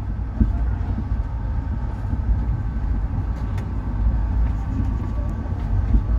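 Passenger train running along the track, heard from inside a coach: a steady rumble of wheels on rails, with a few short knocks along the way.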